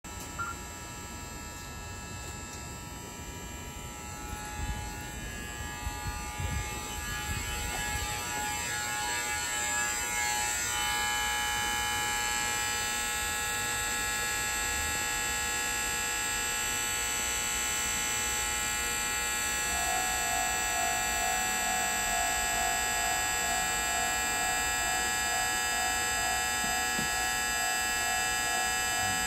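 Station train-approach indicator sounding its warning: a continuous electric buzz that grows louder about a third of the way through. About two-thirds through, a second tone joins, pulsing about twice a second.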